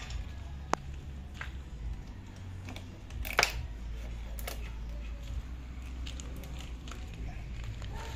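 Scattered clicks and light knocks of hands working a motorcycle's seat lock cable along the frame, with one sharp click about three and a half seconds in, over a steady low rumble.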